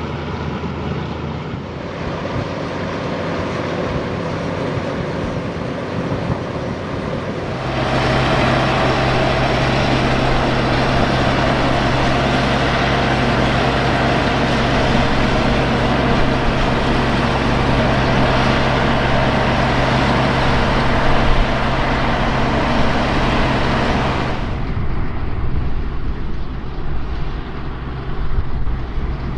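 Harvest machinery engine running steadily. The sound turns abruptly louder and fuller about eight seconds in, then drops back a few seconds before the end.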